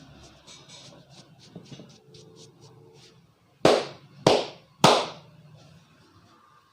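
Three loud, sharp hand slaps about half a second apart, the barber's palms striking during a head massage. Before them, faint quick rubbing strokes.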